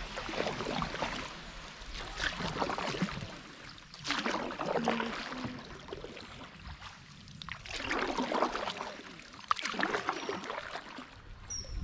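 Canoe paddles dipping and pulling through the water, splashing and dripping in strokes about every two seconds.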